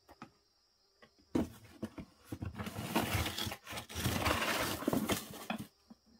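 Dry material rustling and scraping inside a clay kitchen firebox (agungi) as a hand works in it among ash, straw and twigs. After about a second of quiet, a dense crackly rustle with many small clicks starts and runs until just before the end.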